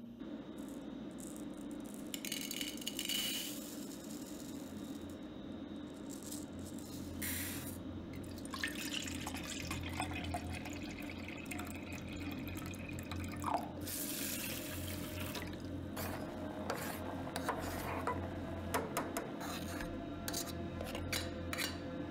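Water poured from a plastic bottle into a plastic measuring jug, with the jug handled and set down. Toward the end a metal spoon clinks and scrapes in a steel bowl of rice. A low steady hum runs underneath.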